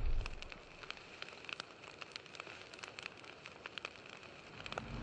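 Faint crackling fire sound effect: scattered sharp crackles over a low hiss. The tail of a loud boom fades away in the first half second, and a low rumble swells in near the end.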